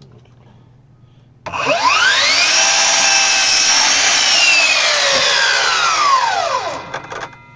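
Bosch 18V cordless miter saw's motor and blade spinning up about a second and a half in, running steadily with a high whine for a few seconds, then coasting down in a falling whine.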